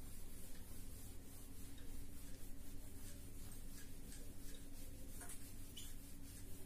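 Whiteboard eraser wiping across a whiteboard in quick back-and-forth strokes, a faint, irregular series of soft scrubbing swishes.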